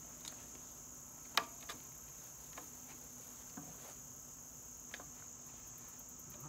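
A steady high-pitched insect chorus, crickets by the sound of it, with a few light clicks and knocks from hands working a wooden gate's metal hinge and latch hardware. The sharpest click comes about a second and a half in.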